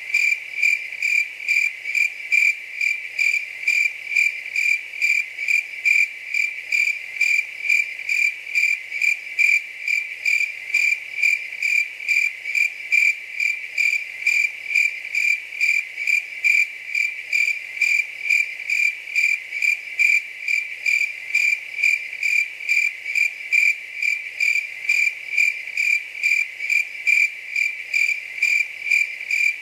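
A cricket chirping steadily and regularly, about two high-pitched chirps a second, with no change in pace.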